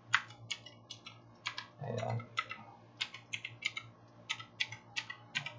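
Gigaware K550 87-key mechanical keyboard's clicky switches being pressed one key at a time, with about a dozen sharp clicks at an even two to three a second.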